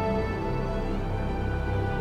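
Background music: sustained, brooding soundtrack chords over a deep low pulse.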